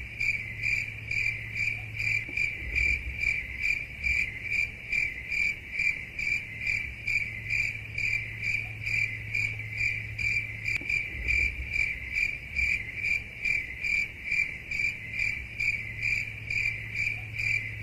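A cricket chirping steadily, about two even chirps a second at one high pitch, over a faint low hum.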